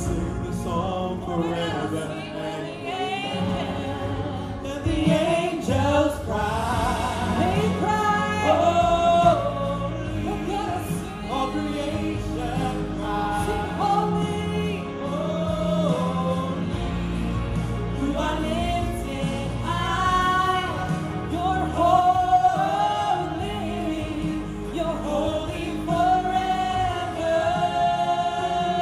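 Three worship singers, one man and two women, singing a contemporary worship song live into microphones over sustained instrumental backing.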